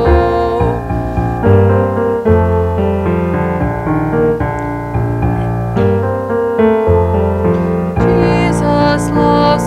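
Roland FP-7 digital piano playing slow, sustained chords as an interlude, with a young woman's voice singing in again about 8 seconds in.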